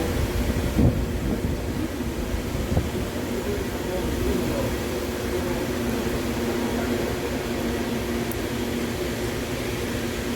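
Electric rotisserie motor, run from an inverter, humming steadily as it turns the chicken spit over the fire. Two brief knocks come about one and three seconds in.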